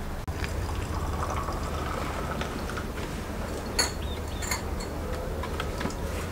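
Glass tea glasses clinking against each other on a metal tray as a hand sets them, with two sharp clinks about four seconds in. Near the end, hot water from a samovar's tap starts pouring into a glass, rising in pitch as it fills.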